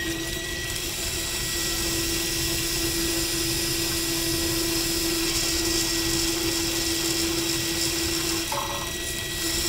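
Electric drive motor spinning a bicycle rear wheel through a Shimano Nexus 3-speed internal-gear hub on a bench test. It has just spun up and runs at a steady speed with a constant high whine.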